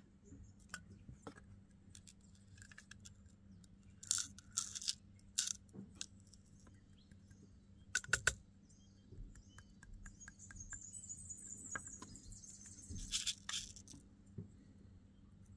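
Small hard pieces of gold clinking and rattling in a few short bursts, as the cleanup is handled for weighing: a cluster about four seconds in, a pair about eight seconds in, and more near the end. Between them, around ten to twelve seconds in, comes a fast run of faint high-pitched chirps.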